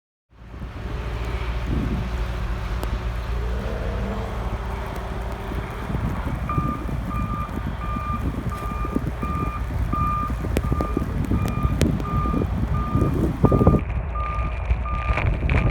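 A vehicle's reversing alarm beeping evenly, about two beeps a second, starting about halfway through, over a steady low engine rumble and wind noise.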